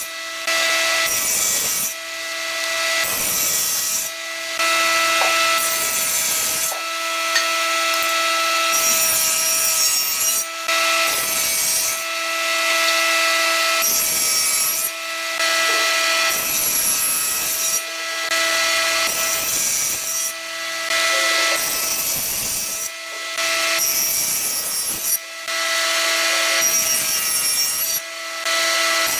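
Table saw running with a steady hum, its blade cutting into the end of a wooden post in repeated short passes, about one every two seconds, as kerf after kerf is sawn to form a tenon.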